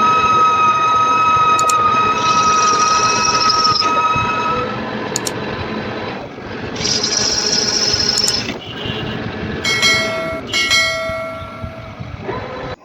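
Metal lathe cutting, the tool squealing against the workpiece in steady high tones over the machine's running noise. About ten seconds in the squeal changes to different pitches with a few clicks, and the sound cuts off abruptly just before the end.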